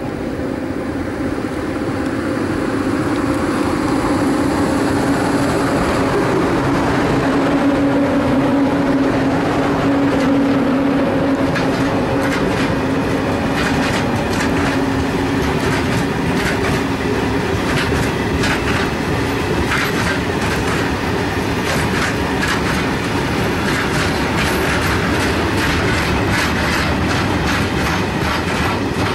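Freight train passing close by. An electric locomotive approaches and goes past with a steady hum that swells and then fades. A long rake of PKP Cargo hopper wagons follows, clattering over the rail joints with a rapid clickety-clack of wheels.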